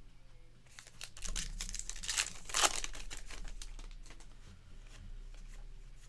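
Crinkling and rustling of trading-card packaging handled by hand, rising about a second in to its loudest a couple of seconds in, then fading.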